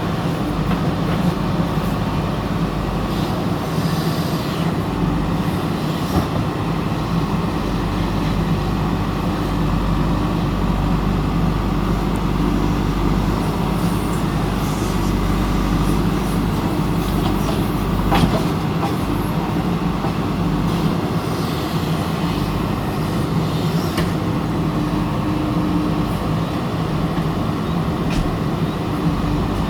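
Heavy diesel engine of a backhoe loader running steadily, with a single sharp metallic knock about eighteen seconds in.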